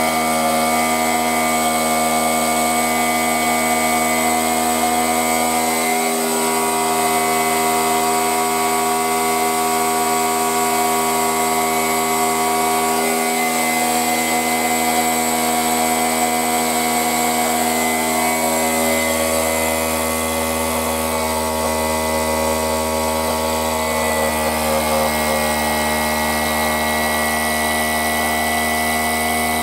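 A Maneurop MT64 two-cylinder reciprocating air-conditioning compressor, its shell opened, running at high speed on a variable-frequency drive. It makes a loud, steady whine of many tones, and its low hum grows stronger about two-thirds of the way through. The compressor is worn: its valves only work at very high speed.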